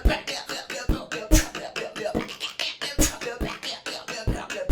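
Human beatboxing: a fast, dense beat of sharp clicks and snare-like hits, with deep kick-drum sounds landing every half second to a second.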